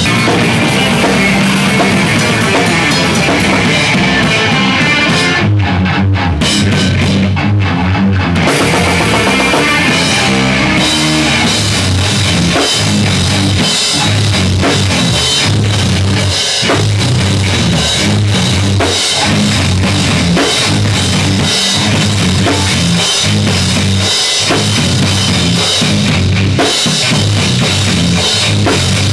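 Rock band playing loud and steady: a drum kit with bass drum and cymbals driving a beat under electric guitars played through amplifiers.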